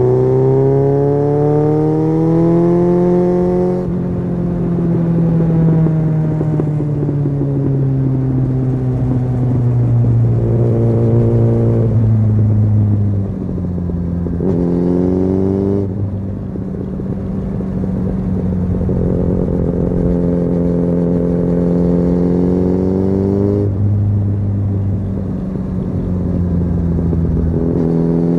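Suzuki GSF 600 Bandit's inline-four engine through a Leo Vince SBK aftermarket exhaust, heard from on the bike. It pulls up through the revs for the first few seconds, then winds down slowly on the overrun. Its pitch climbs and drops several more times as the rider accelerates and eases off through the bends, with a sudden drop about two thirds of the way through.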